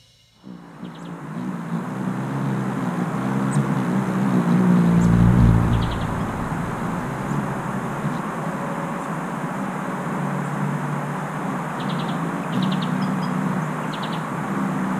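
Outdoor ambience of a vehicle's engine and tyre rumble swelling past about five seconds in, then settling into a steady traffic hum. Short bird chirps come through it several times, most often near the end.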